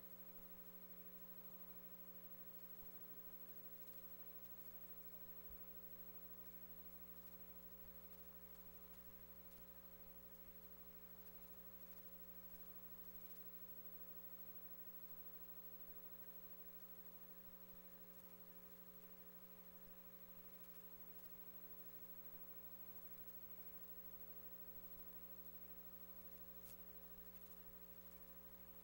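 Near silence: a faint, steady electrical hum, with an occasional faint tick.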